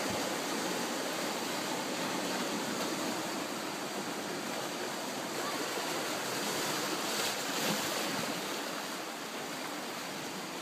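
Steady rush of sea surf washing through a rocky channel.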